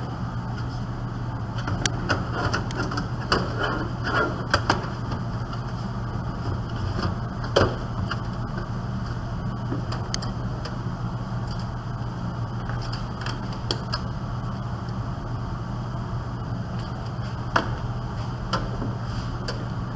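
Scattered knocks and clicks of a PC power supply being handled and fitted back into a desktop system unit's metal case, the sharpest knock about seven or eight seconds in, over a steady low hum.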